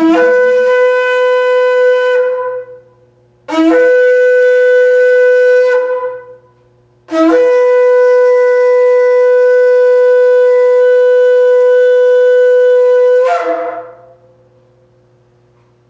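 Shofar (ram's horn) sounded in three blasts, the first two short and the third much longer. Each blast breaks in on a brief lower note, leaps up to a steady held tone, and trails off at the end.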